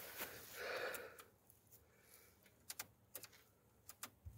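A soft breath near the start, then a handful of light, sharp clicks, several in quick pairs, in the second half: plastic dashboard switches in a truck cab being pressed.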